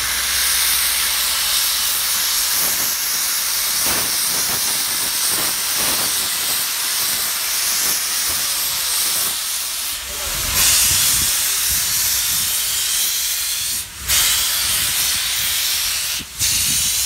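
Steam locomotive Robert Dollar Co. No. 3 hissing steadily as it leaks steam by its cylinders. About ten seconds in the hiss gets louder and a low rumble joins it as the locomotive moves off, with two brief drops in the hiss near the end.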